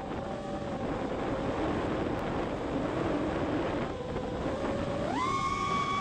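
Alien 5-inch FPV racing quadcopter's brushless motors whining over wind rush as it skims low, the pitch wavering with throttle. About five seconds in, the throttle is punched for a climb and the whine jumps sharply higher and holds.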